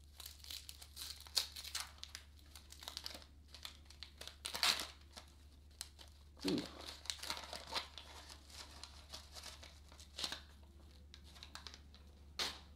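Waxed-paper wrapper of a 1981-82 Topps basketball wax pack being torn and unfolded by hand, crinkling irregularly, with a few louder crackles and rips.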